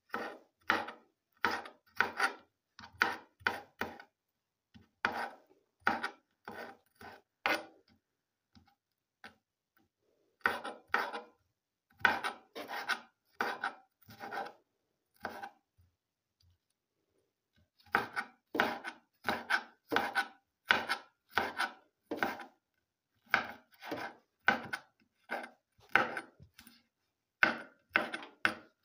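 Kitchen knife chopping green bell pepper on a cutting board: sharp strokes about two a second, in three runs broken by two short pauses.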